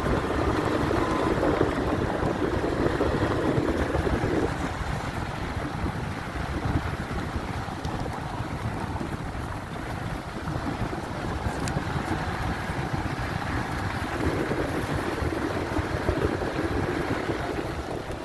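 Subaru Impreza's flat-four engine and tyre noise on the move along a rough road, a steady rumble with wind buffeting the microphone. It is heavier and louder for the first four seconds or so and again from about three-quarters of the way through.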